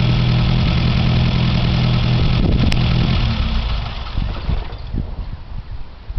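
1952 MG TD's four-cylinder XPAG engine idling steadily, then shut off a little over three seconds in, cutting out abruptly. A few irregular low thumps follow.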